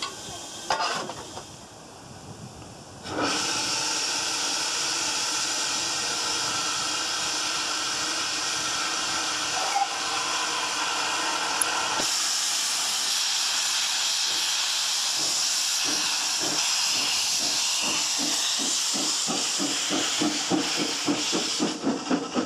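Steam railmotor's engine: a steady hiss of escaping steam that starts suddenly about three seconds in, joined in the second half by regular exhaust beats that quicken as the railmotor pulls away.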